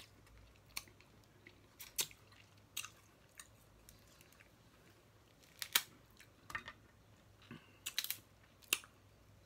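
Snow crab legs being eaten: scattered sharp clicks and cracks of shell and chewing, loudest a little before six seconds in and around eight seconds in.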